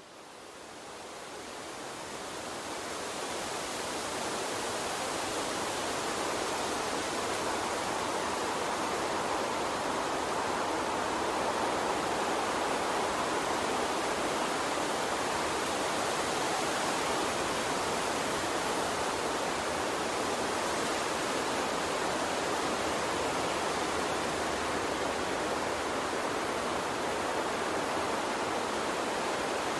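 Water stream running with a steady, even rushing hiss, fading in over the first few seconds.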